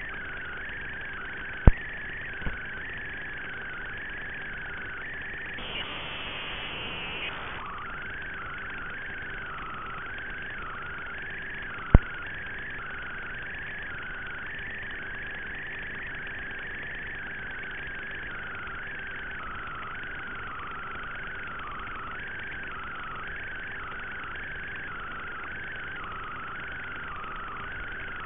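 Steady hiss with a wavering high whine and a faint low hum, muffled as if band-limited, from the audio channel of an analog FPV video recording. Two sharp clicks, about 2 s and 12 s in, and a brief louder rush of static around 6 to 7 s.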